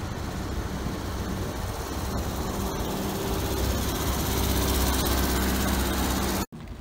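Engine of a lifted off-road Volkswagen Beetle running as the car drives slowly past, a steady hum that grows louder as it comes alongside, then cuts off abruptly near the end.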